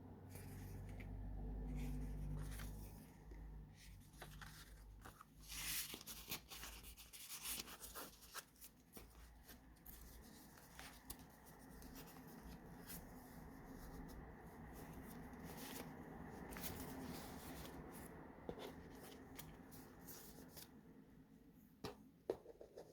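Pages of a handmade paper junk journal being turned and handled: soft rustling with scattered light taps and crinkles.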